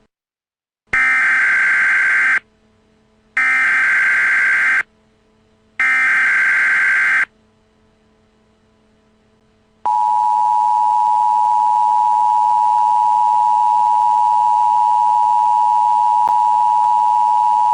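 Emergency Alert System tones. First come three SAME header data bursts, each a harsh buzzing warble about a second and a half long with a short gap between. About ten seconds in, the steady two-tone attention signal starts and is held to the end.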